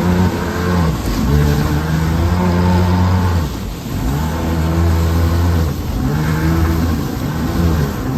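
Jet ski engine running and being throttled up and down, its pitch dropping and rising again several times, over a steady rush of water and wind.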